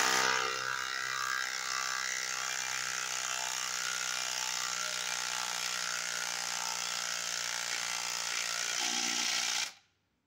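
Kobalt XTR 24-volt max cordless impact driver hammering steadily as it drives a long screw into the end grain of a log, then cutting off suddenly near the end with the screw not fully driven. It is running on a nearly flat battery whose charge light is flashing.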